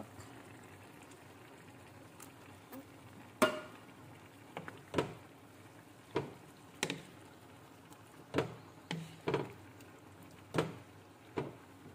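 Wooden spoon stirring chicken curry in coconut milk in a pan, knocking against the pan in about ten irregular clacks after a quiet first few seconds.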